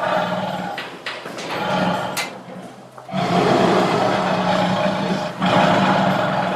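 Tiger roaring and growling: shorter rough growls at first, then a long loud roar from about three seconds in, broken by a brief pause before another roar.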